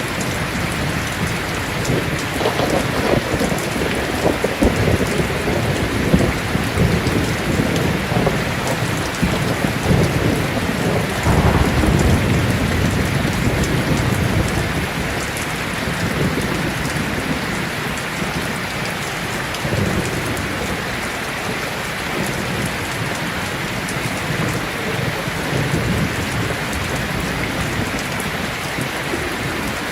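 Heavy rain falling steadily, with rolling thunder rumbling low several times; the strongest roll comes about eleven to fourteen seconds in.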